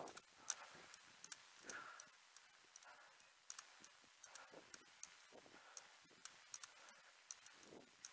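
Faint running footfalls, about two to three sharp clicks a second, with soft breathing between them, heard through a head-mounted action camera.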